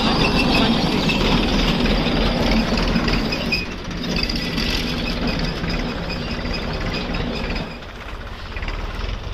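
A Bengal gram reaper-harvester running, a steady machine noise with a constant whine. The noise drops a step about three and a half seconds in and again near eight seconds.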